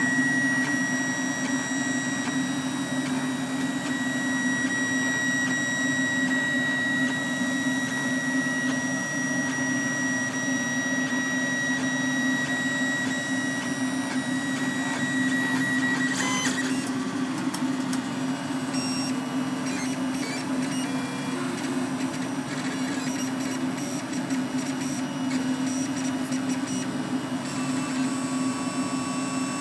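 LulzBot Mini 3D printer running mid-print: a steady hum under the whine of its stepper motors as the print head and bed move through a layer. A high steady tone drops out about halfway through, and the motor sound turns busier and more changeable after that.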